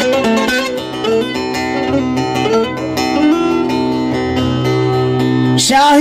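Bağlama (long-necked Turkish saz) playing an instrumental passage of quick plucked notes over a steady low drone; a man's singing voice comes in near the end.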